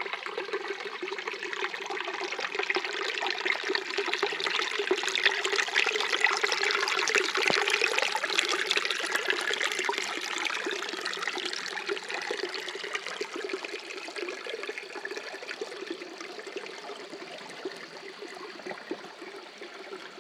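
Shallow creek water running and trickling over rocks, a steady rushing that swells about a third of the way in and then slowly fades.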